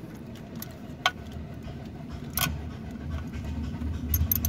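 A car engine running, its low rumble growing louder over the last second or so, with a couple of sharp clicks about a second and two and a half seconds in.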